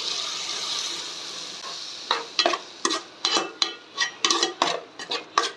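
Ground coconut paste going into hot oiled onion-tomato masala in an aluminium pot, with a sizzle that slowly fades. Then, about two seconds in, a metal spoon starts stirring and scraping the pot in quick strokes, about three a second.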